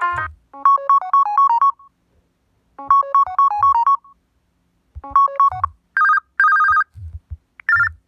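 Smartphone ringtones previewing through the phone's speaker. A short electronic melody plays twice and is cut off partway through a third time, then a brief two-tone beeping ringtone sounds and stops. Soft low thumps come between them.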